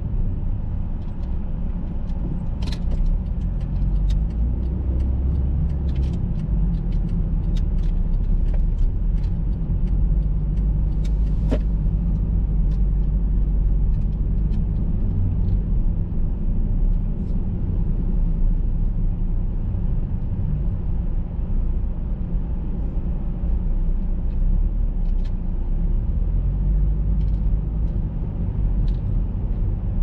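Car driving slowly, heard from inside the cabin: a steady low rumble of engine and tyres, with scattered light clicks.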